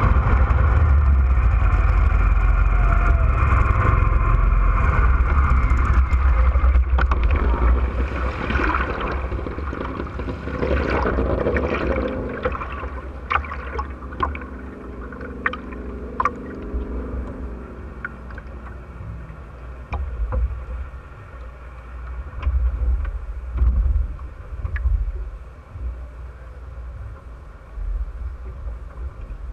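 Wind and water rushing loudly over a Top Fuel hydroplane drag boat's onboard microphone as the boat decelerates on the water. The rush fades over the first ten seconds or so, and a low tone falls in pitch as the boat slows. Then water laps and drips against the stopped hull, with scattered ticks and swells.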